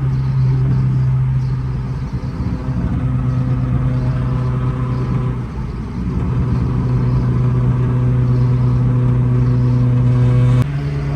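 A car engine running at a steady speed with a deep, even drone, its pitch stepping slightly a few times and changing abruptly about ten and a half seconds in.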